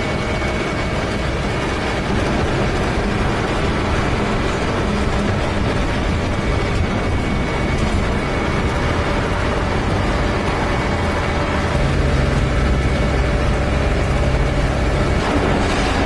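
Heavy diesel road-paving machinery running steadily, asphalt rollers among it, with a dense mechanical noise. A deeper, steadier engine hum comes in about twelve seconds in.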